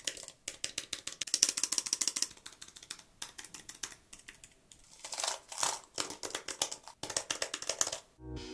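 Typing on the BOOX Tab Ultra C's keyboard cover: rapid, clicky keystrokes in quick runs with brief pauses between them, stopping just before the end.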